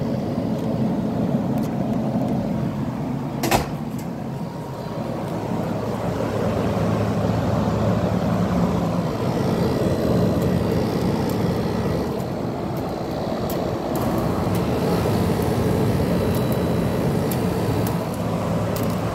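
GE air conditioner running, a steady low hum of its fan and compressor, with a single sharp click about three and a half seconds in.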